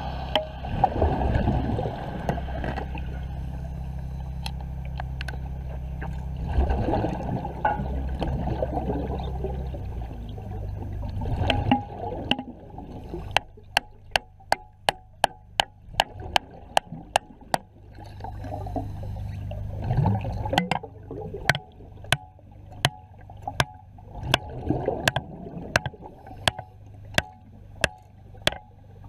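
Underwater sound at a diver's helmet during wet welding: bubbling and gurgling over a low steady hum for the first ten seconds or so, then a regular run of sharp clicks, about three a second, with bubbling continuing between them.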